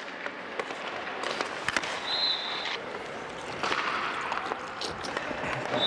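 Ice hockey practice on a rink: skate blades scraping the ice and sticks and pucks clacking in scattered sharp clicks, over a steady hiss. Two brief steady high tones sound, about two seconds in and near the end.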